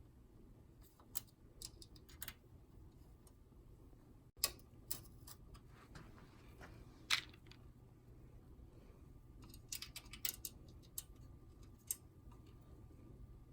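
Light, irregular clicks and taps of metal and plastic as a floppy disk drive is fitted and screwed into a PC case's drive cage, the sharpest about four and seven seconds in, over a low steady hum.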